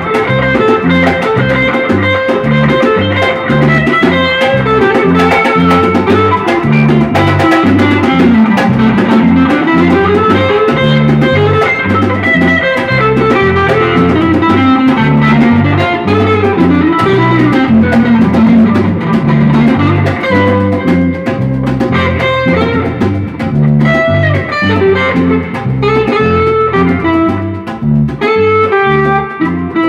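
Instrumental samba-reggae band music: guitar playing melodic lines over bass and drums with a steady beat.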